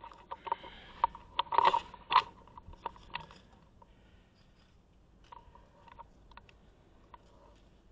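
Handling noise from an airsoft player's gear and rifle: a quick run of clicks, knocks and scrapes, loudest about two seconds in, then only a few faint ticks.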